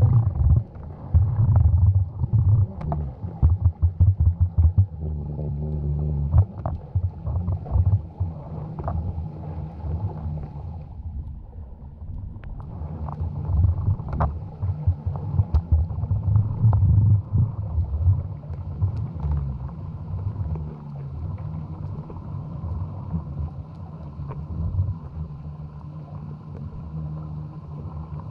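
Underwater sound picked up by a GoPro Hero 7 lowered into the sea: an uneven low droning hum that swells and fades, broken by many short knocks and taps.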